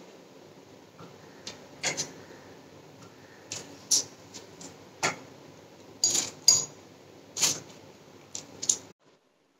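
Knife cutting small tomatoes over a stainless steel mixer jar, with pieces dropping in: about a dozen scattered sharp clicks and taps over faint room noise.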